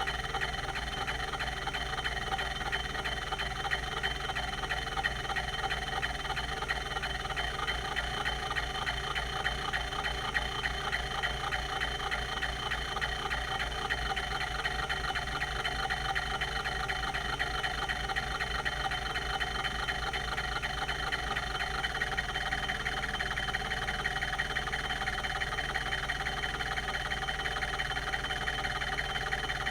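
Quantum Q540 5.25-inch full-height MFM hard drive running, its rotary voice-coil actuator seeking rapidly and without pause: a fast, steady stream of ticking and squeaking over the hum of the 3600 RPM spindle.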